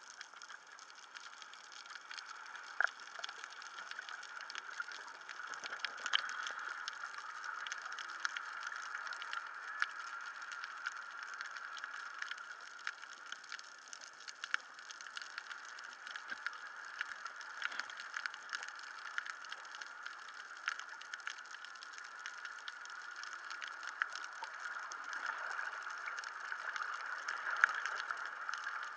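Underwater reef ambience heard through a waterproof camera housing: a muffled, steady hiss with a continuous crackle of many small clicks, and a few sharper clicks now and then.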